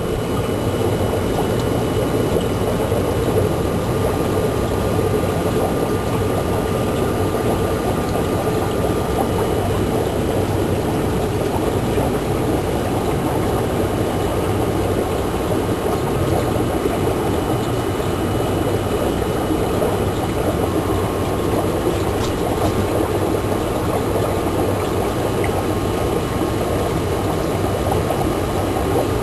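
Steady running of an aquarium air system: the drone of an air pump mixed with water bubbling from air-driven sponge filters, unchanging throughout.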